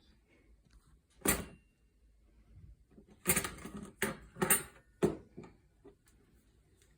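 Dishes and silverware knocking and clattering as they are pulled from a dishwasher rack: a single knock about a second in, then several clatters in quick succession a couple of seconds later.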